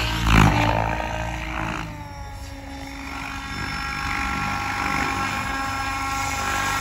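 Banshee 850 radio-controlled model helicopter flying: loud rushing rotor noise with a falling pitch in the first two seconds, then a steady whine of rotors and drive as it hovers low.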